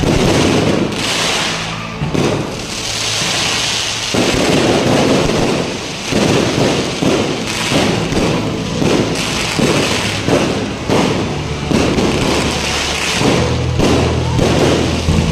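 Fireworks display: a quick run of aerial bangs and crackles that comes faster from about six seconds in, with music playing underneath.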